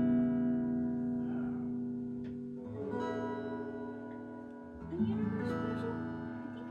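Acoustic guitar chords strummed and left to ring between sung lines, with a new chord struck about three seconds in and another about five seconds in.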